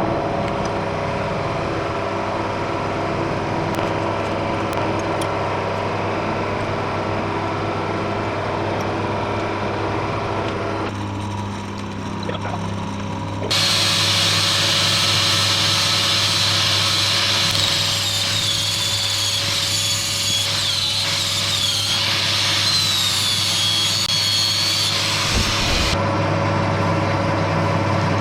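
Harrison metalworking lathe running steadily with a constant hum. About halfway through, a higher, wavering noise of the tool cutting the work joins in, stopping a couple of seconds before the end.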